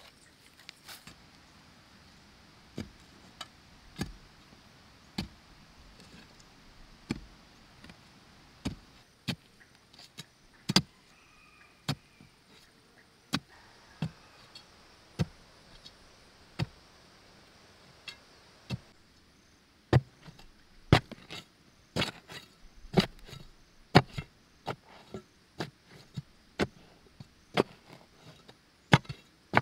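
Hoe blade chopping into packed earth, one sharp strike after another about once a second, the strikes coming faster and harder in the last third.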